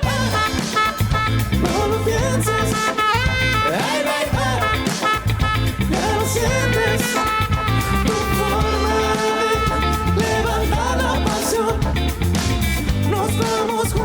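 Funk music: a band playing with electric guitar over a steady, driving low end.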